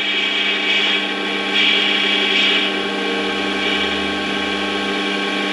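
Warco WM180 mini lathe running steadily with a constant whine, while the cutting tool takes a turning pass along an aluminium shaft. The cutting hiss swells and eases a few times.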